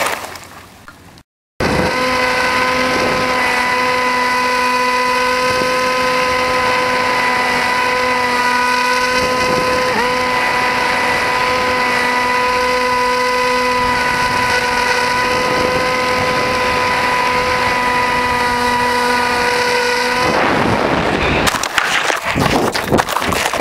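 RC plane's electric motor and propeller whining at a steady pitch in flight, with one brief dip about halfway. Near the end the whine cuts out abruptly, and a few seconds of rough rustling and cracking follow as the plane comes down into palm fronds.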